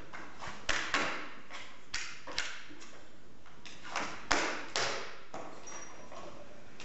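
Paper and cardboard being handled on a desk: a dozen or so irregular crinkles and taps, some sharp, others a short rustle.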